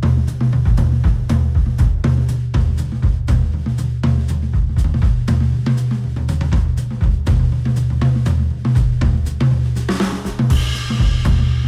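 Instrumental music with a drum kit (kick, snare, hi-hat, cymbals) over heavy bass, played through a Sennheiser open-back headphone and picked up by microphones at the earcup. About ten seconds in, a rising swell of noise builds up over the beat.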